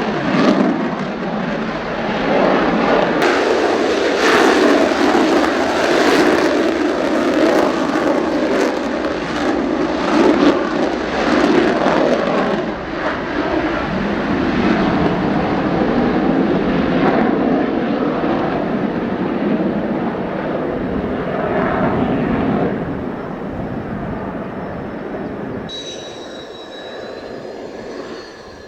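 Mitsubishi F-2 fighter's jet engine, a loud, steady rush of noise that fades away over the last several seconds. As it fades, a faint high thin whine comes in near the end.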